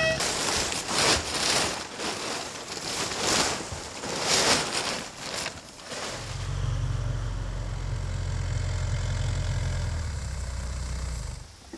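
Gusty rushing noise for the first half, then a steady low engine hum, a motor idling, that starts about halfway through and cuts off just before the end.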